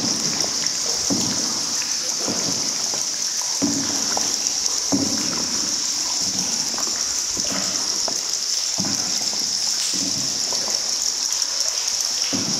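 Water splashing and dripping from a paddled boat on an underground river, the splashes coming about once every second, over a steady high-pitched hiss.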